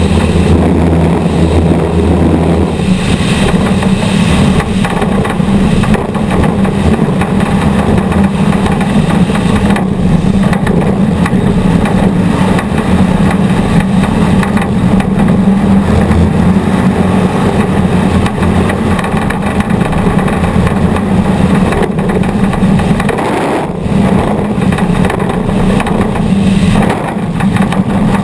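Off-road race vehicle's engine running hard and steady under racing load, heard from an onboard camera, easing off briefly twice near the end.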